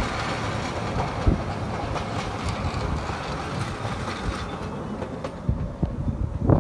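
Carriages of a narrow-gauge railway train rolling past over a level crossing, a steady rumble with occasional wheel clicks over the rail joints, dying away near the end as the last carriage clears.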